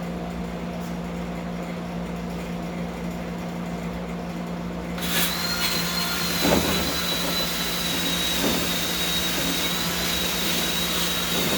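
A small electric motor-driven tool switches on about five seconds in and runs steadily with a constant high whine, over a low background hum.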